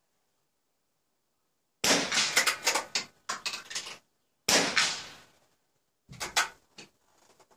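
Two .22 rimfire smallbore rifle shots on a 50 m running-target range, about two and a half seconds apart. Each is a sharp crack with a rattling tail that dies away within about a second. A few fainter, sharper knocks follow near the end.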